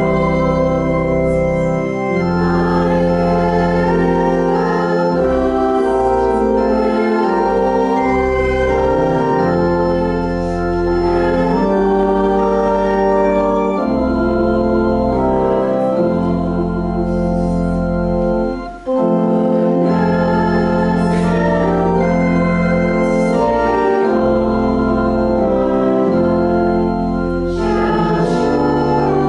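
Organ playing a slow piece in long sustained chords over a deep bass line, with one short break about two-thirds of the way through.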